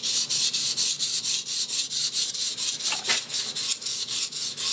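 Blue-steel mini nakiri blade scraping back and forth on a wet 320-grit Nubatama Bamboo waterstone, a coarse gritty hiss in quick, even strokes about four a second, as the second side of the edge is sharpened.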